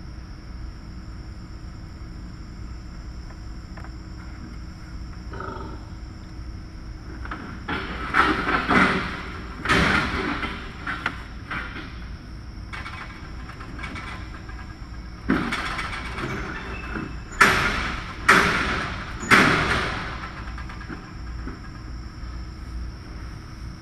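Pig farrowing barn ambience: a steady mechanical hum, broken twice by groups of short, harsh bursts, once about a third of the way in and again after the middle.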